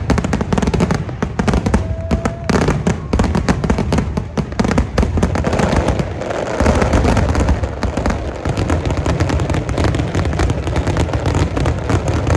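Large fireworks display going off without a break: dense, rapid overlapping bangs and crackles over deep booms.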